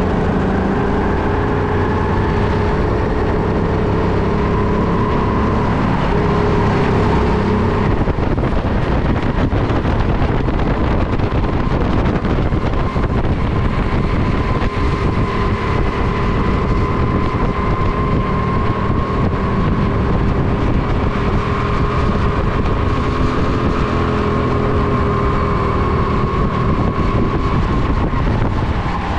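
Go-kart engine running at speed, its pitch dipping and rising slowly as the kart brakes for corners and accelerates out of them, with wind rushing over the helmet-mounted microphone.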